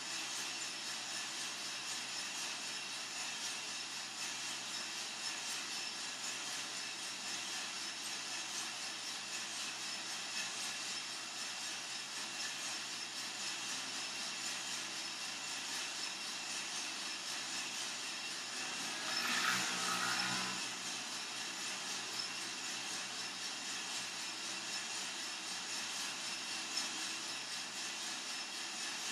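Coffee-Tech FZ-94 lab coffee roaster running steadily mid-roast, a constant mechanical hiss and hum. About two-thirds of the way through, a brief louder noise rises over it for about a second.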